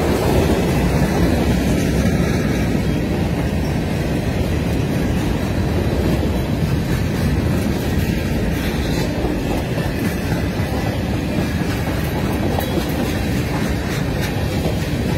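Freight cars of a passing CSX train, mostly hoppers and gondolas, rolling by close at hand: a steady rumble of steel wheels on the rails.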